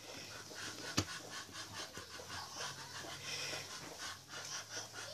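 A sharp click about a second in, then quick, rhythmic panting.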